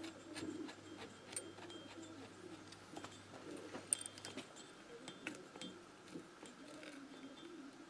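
Faint, scattered metallic clicks and taps as the clutch nut and small parts are handled and fitted on a moped's AM6 engine, with one sharper click about four seconds in. A soft, low, wavering tone runs behind.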